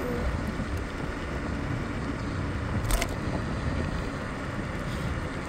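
Scooter rolling along a paved street, a steady low rumble of wheels and motion noise, with one sharp knock about three seconds in.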